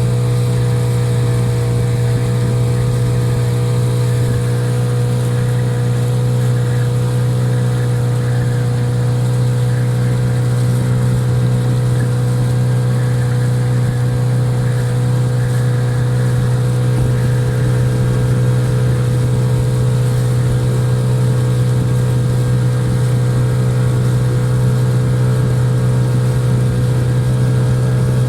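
Hidea 9.8 outboard motor running steadily at low revs during break-in, in a motor that has developed an intermittent ringing extraneous noise at low revs.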